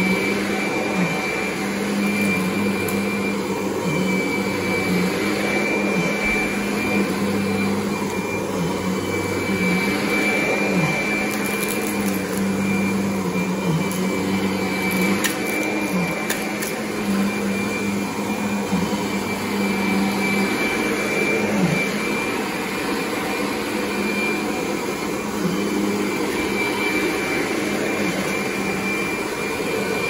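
Kirby Sentria upright vacuum running steadily as its power nozzle is pushed over carpet: a constant motor hum with a thin high whine over the rush of air and brush roll.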